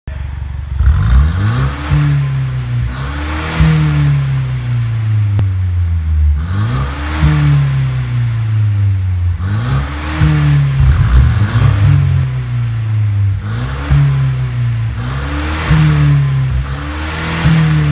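Mercedes-Benz W205 C200 coupe's turbocharged four-cylinder revved in repeated quick blips through a Mar's pop exhaust, about a dozen times and sometimes in close pairs, each rev rising fast and falling back more slowly. There are sharp pops between the revs, and the car is in its stock Sport+ drive mode.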